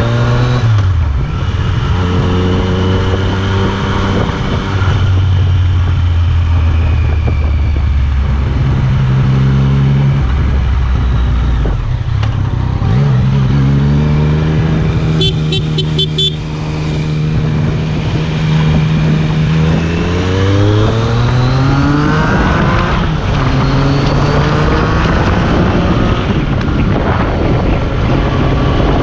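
Yamaha FZ-09's inline-three engine running through an aftermarket Akrapovič carbon-fibre exhaust while ridden, its note dropping, holding steady and rising again with the throttle, with the revs climbing about two-thirds of the way in.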